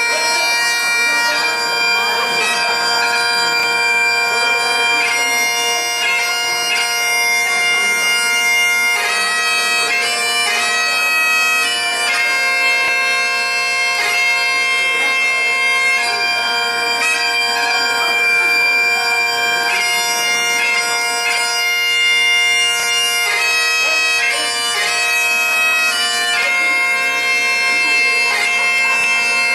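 Highland bagpipes playing a tune: the chanter melody moves from note to note over the steady, unbroken drones.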